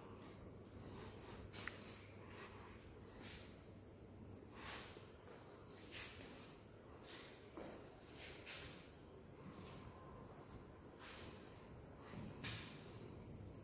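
Faint steady trilling of crickets, with a few soft ticks now and then.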